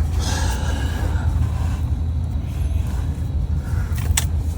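A steady low rumble, with a single faint knock near the end.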